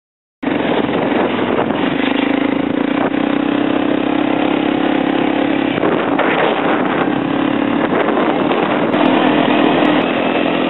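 Quad bike (ATV) engine running at a steady speed while riding, a constant low hum under a rushing noise. It cuts in abruptly about half a second in.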